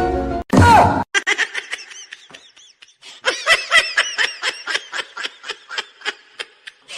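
A person laughing hard in quick repeated bursts, building from about three seconds in to roughly four or five bursts a second.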